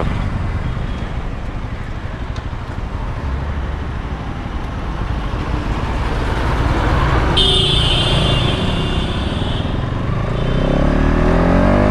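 Bajaj Pulsar NS200's 200 cc triple-spark single-cylinder engine running on the move in traffic, with road noise. A high, steady horn sounds for about two seconds just past the middle. Near the end the engine's pitch climbs as the bike accelerates.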